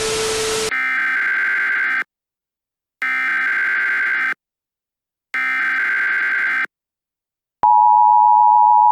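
Emergency Alert System broadcast signal. A brief burst of static with a low tone gives way to three bursts of the SAME digital header, a buzzy, screeching data tone, each about a second and a half long with short gaps between them. Near the end the steady two-tone EAS attention signal starts and holds.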